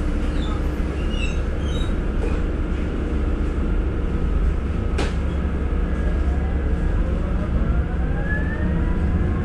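Running noise inside a moving city bus: a steady low rumble, with a sharp click about five seconds in and a rising whine over the last few seconds.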